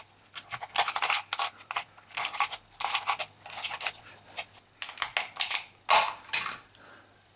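Small screwdriver prying at the seam of a plastic computer mouse's shell: irregular clicking and scraping of metal on plastic as the snap-fit clips holding the two halves are worked loose.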